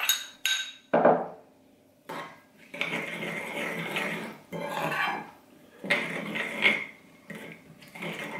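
Metal spoon clinking and scraping against porcelain bowls: a few sharp clinks near the start as it knocks against the small bowl, then several bouts of stirring a liquid soy sauce dressing, the spoon scraping round the porcelain bowl.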